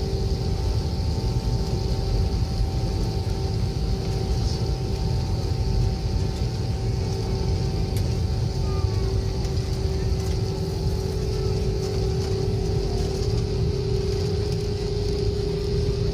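Steady drone of an airliner heard inside the passenger cabin during takeoff: a deep rumble under a constant hum tone and an airy hiss, unchanging throughout.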